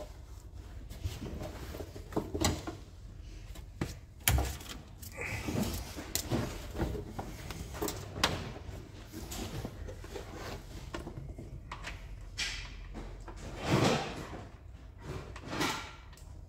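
Irregular clicks, knocks and rustling as a wiring loom is handled and fed down the door pillar of a Ford Sierra Sapphire RS Cosworth body shell. A few sharper knocks stand out, about four, eight, fourteen and fifteen seconds in.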